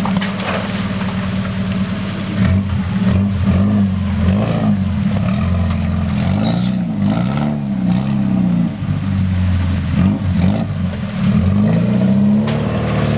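Suzuki Samurai's 1.6-litre 16-valve engine revving up and down over and over as it works the rig over an obstacle, with a few sharp knocks from the rig in the middle.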